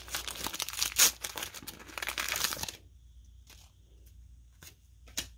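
Trading-card pack wrapper being torn open and crinkled for nearly three seconds, then a few short light clicks as the cards are handled.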